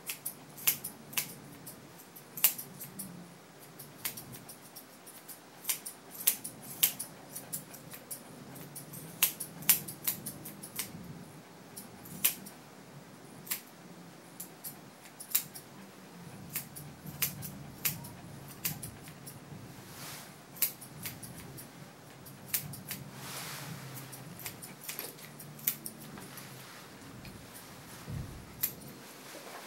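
Grooming shears snipping through a dog's coat: irregular sharp snips, about one or two a second.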